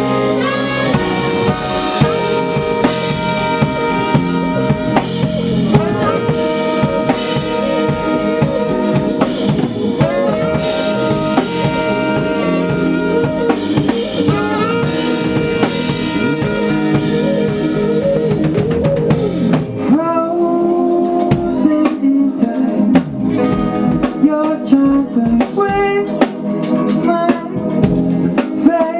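A live soul-funk band plays a groove: drum kit with snare and rimshots, bass, electric guitars, keyboards and a saxophone section. About two-thirds of the way through the low end thins out and the arrangement gets lighter.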